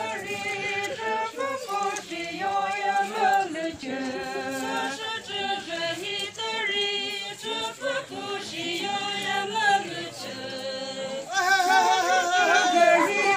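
A group of women singing a traditional Pochury Naga folk tune together, voices alone with no instruments. The singing gets louder about eleven seconds in.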